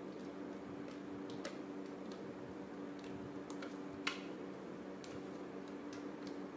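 Thick pastry cream being scraped out of a stainless steel pot into a baking tray: scattered light clicks of the utensil against the pot, with one sharper click about four seconds in, over a steady low hum.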